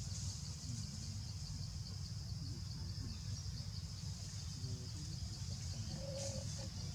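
Steady high-pitched insect chorus, with a constant low rumble beneath it.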